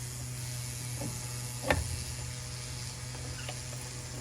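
A sharp plastic click about a second and a half in, with a fainter one before it, as a tail light bulb socket is twisted free of the housing, over a steady low hum.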